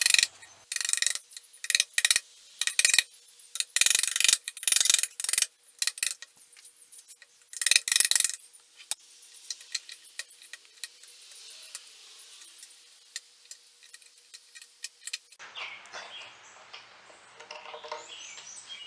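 A pointed metal hand tool scraping and gouging out old filler and broken wood from a damaged veneer edge: a run of sharp, squeaky scraping strokes, then fainter scratching. Birds chirp faintly near the end.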